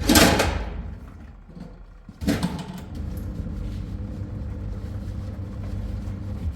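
A steady low machine hum, with a loud noisy burst at the start and another about two seconds in.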